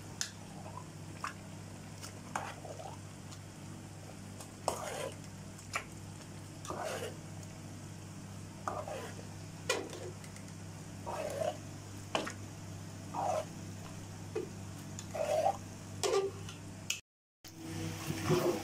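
A large spoon stirring and scraping thick rice and shredded meat in a big metal cooking pot, in short strokes about every second, over a steady low hum. The sound cuts out for a moment near the end.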